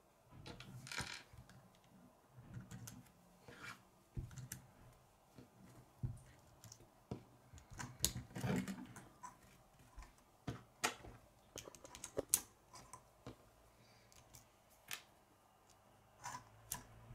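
K'nex plastic rods and connectors being handled and snapped together: faint, irregular sharp clicks, with brief rustling of the pieces a second in and again about eight seconds in.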